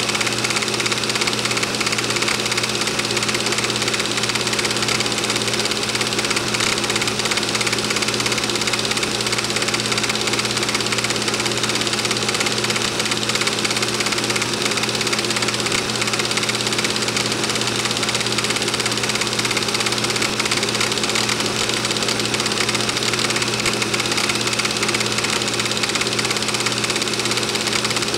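Film projector running steadily: a continuous mechanical whir and fast clatter over a low hum.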